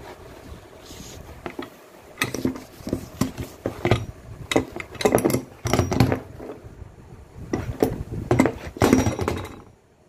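Cardboard box and tape packing being torn and handled as a shock absorber is unboxed: a run of irregular rips, rustles and knocks that stops just before the end.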